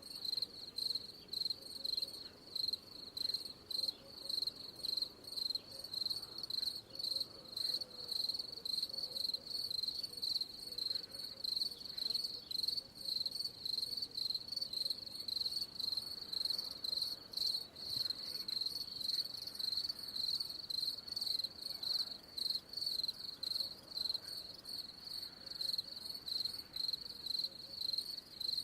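Cricket chirping: a high-pitched trill repeated in a steady, even rhythm of short pulses without pause.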